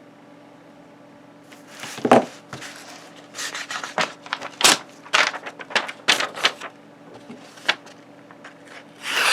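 Knife blade being stropped on the Worksharp Precision Adjust's guided strop: a run of irregular light clicks and short scraping strokes as the strop rod is worked along the edge, with a louder rustle right at the end.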